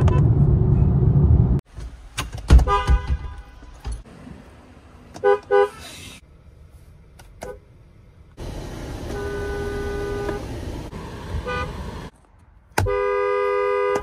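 Car horns of several different cars, a Hyundai and a Ford among them, honked in turn: a long blast that stops about a second and a half in, a few short toots, a honk of about two seconds near the middle, a short beep, and a final honk of about a second near the end.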